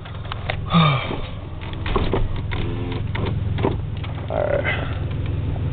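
Car stereo playing a rap track with heavy subwoofer bass, heard from inside the car's cabin through 15-inch subwoofers driven by a Lanzar Opti1535D amplifier. The sound swells up over the first second or two, then the bass runs steady and distorted on the microphone, with short clicks through it.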